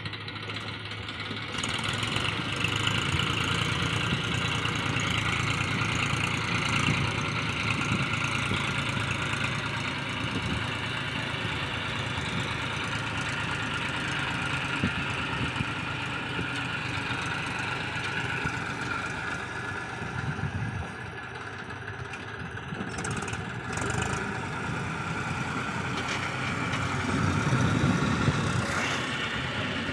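Massey Ferguson tractor's diesel engine running steadily under load as the tractor pushes a leveling blade through loose gravel. The engine grows louder near the end.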